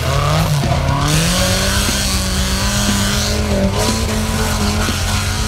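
Off-road buggy engine revving high and held at a steady high pitch as the buggy ploughs through a mud pit, with mud and water splashing.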